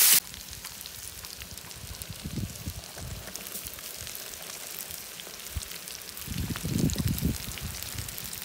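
Faint crackling sizzle of meat, onion and carrots frying in oil in a cast-iron kazan over an open fire, with dull low rumbles about two seconds in and again near the end.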